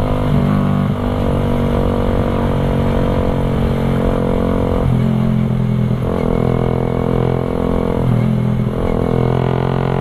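Suzuki Raider 150 carb's single-cylinder engine running at cruising speed through an open Creed-style aftermarket exhaust, a loud, full note. The note dips and picks up again a couple of times around the middle as the throttle changes.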